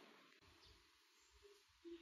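Near silence: faint room tone with a few soft low knocks.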